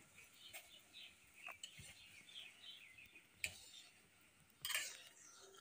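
Faint clinks and a scrape of a steel ladle against a steel kadai while stirring rasgulla in boiling sugar syrup: a few sharp taps, then a short scraping rustle near the end.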